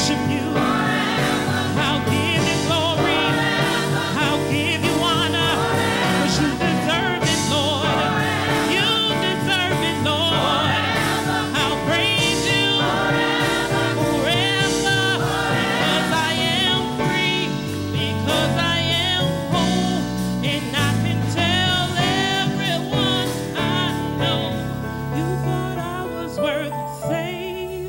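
Live gospel song: a woman sings lead with a wavering, held voice over backing singers and instrumental accompaniment. It gets quieter over the last few seconds.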